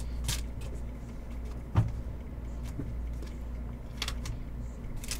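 Trading cards and packs being handled on a table: scattered soft rustles and clicks, with one sharper knock a little under two seconds in, over a steady low hum.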